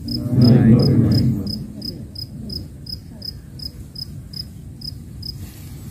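A cricket chirping steadily, short high-pitched chirps about three times a second, stopping shortly before the end. A louder, low, indistinct sound lies under the chirps for the first second and a half.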